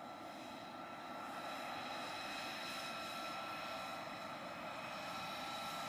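F-35A Lightning II's F135 turbofan engine running at taxi power: a steady high whine over a rushing hiss, growing a little louder about a second in as the jet taxis closer.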